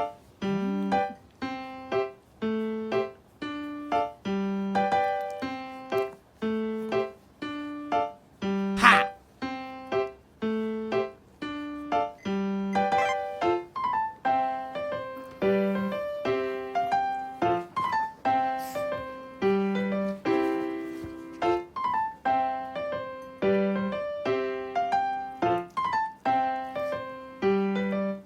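Background music: a bouncy piano-like keyboard tune of short notes repeated at an even pace. A brief sharp noise cuts through about nine seconds in.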